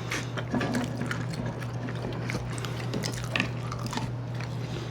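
Close-up eating sounds: wet chewing, mouth smacks and small clicks of someone eating fried fast food, over a steady low hum.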